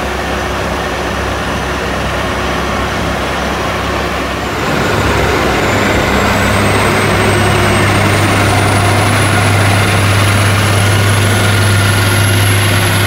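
Heavy snow-clearing vehicle running. About four and a half seconds in it gets louder, settling into a steady low drone with a high whine that slowly rises in pitch.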